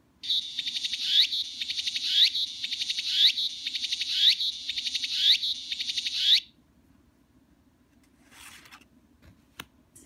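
Recorded song of a tsukutsukuboshi cicada (Meimuna opalifera) played from the small speaker of a Nakigoe Navi sound-card toy: a rapid pulsing trill with a rising sweep that closes each phrase, repeating about once a second for some six seconds and then cutting off suddenly. A short rustle and a sharp click follow near the end.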